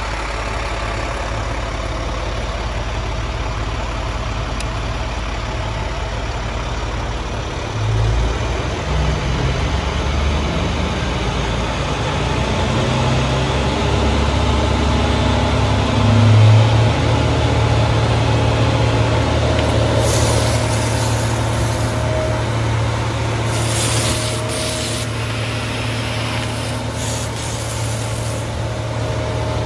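Vactor 2100 sewer truck's engine and high-pressure water pump running steadily; about eight seconds in the engine note changes and grows louder as the pump is brought up to pressure. In the last third, the wash-down gun's water jet hisses in several bursts as it sprays onto concrete.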